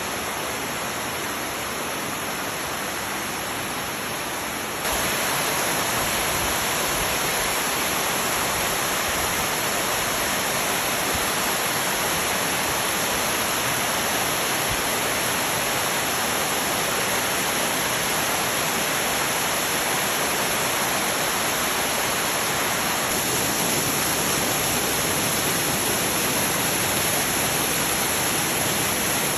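Waterfall: a steady rush of falling water, which becomes louder suddenly about five seconds in.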